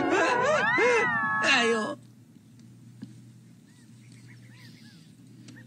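A cartoon wolf's long wailing cry that glides up in pitch and falls again, cutting off suddenly about two seconds in. Afterwards only a faint low hum and a few faint high chirps remain.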